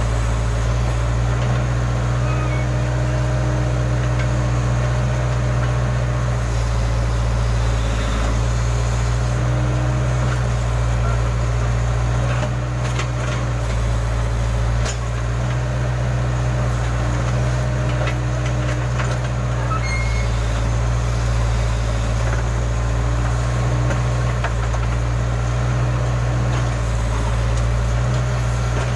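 Diesel engine of a Case backhoe loader running steadily while digging, its note dipping slightly a few times with load, with a few faint knocks.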